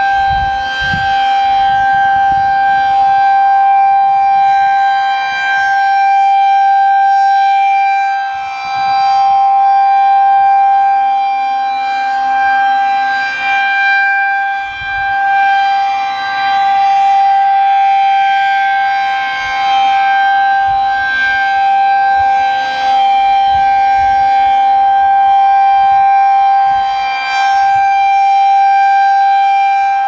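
High-pitched Federal Signal 2001-SRNB electromechanical siren sounding the alert signal, a single steady tone that holds its pitch. It swells and dips in loudness every several seconds as the rotating horn sweeps past.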